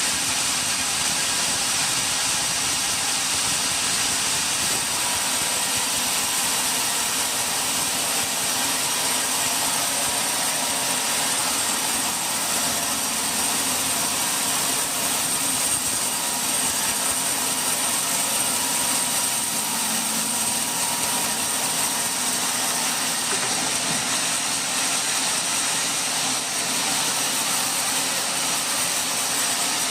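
Sawmill machinery running steadily, a constant mechanical noise with a thin high-pitched whine held throughout.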